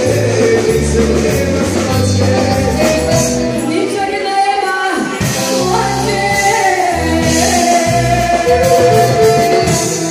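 A woman singing through a microphone over a live band with keyboard and drums, amplified through PA speakers, with a pulsing bass line under the melody.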